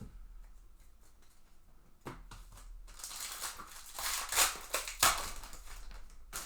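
A baseball card pack's wrapper being torn open and crinkled, with the crackling loudest and sharpest about four to five seconds in.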